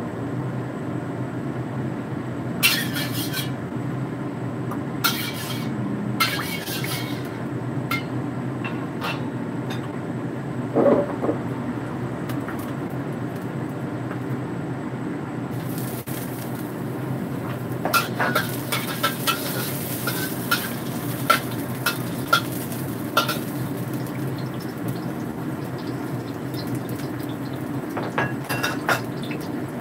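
Metal spatula clinking and scraping against an iron wok over a steady low hum. About halfway through, a sizzle starts as chopped garlic and chili go into the hot oil, with a flurry of spatula clinks.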